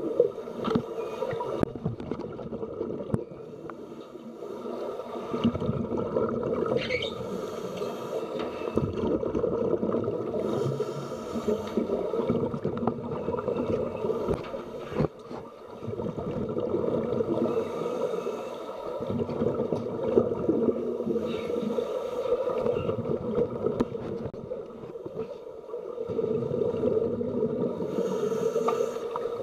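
Underwater sound in a swimming pool: a steady hum with a noisy water wash that swells and fades every few seconds, and a few faint clicks.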